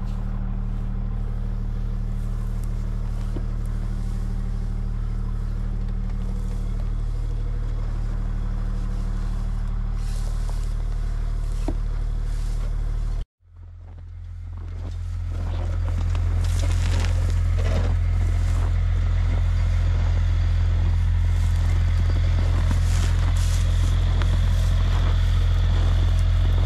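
Side-by-side UTV engine idling steadily, with hay rustling and scraping as it is pushed off the bed. About halfway through the sound cuts out for a moment, then the steady engine hum comes back louder.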